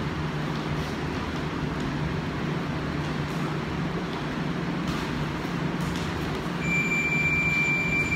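Steady low hum and rushing noise of a gym room. Near the end comes a single steady high electronic beep lasting about a second and a half, as the sparring stops: a round timer signalling the end of the round.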